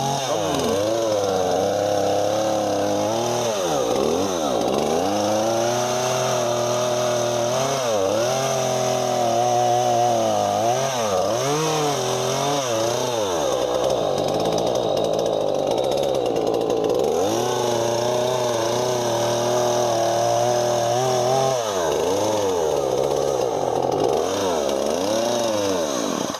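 Husqvarna 236 two-stroke chainsaw engine running, its revs falling and climbing back again and again as the throttle is worked, then cutting out at the very end. The owner judges it to be running a bit rich, with the idle not set right.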